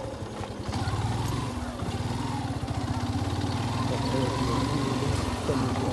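Motorcycle engine running steadily, with a fast even firing pulse.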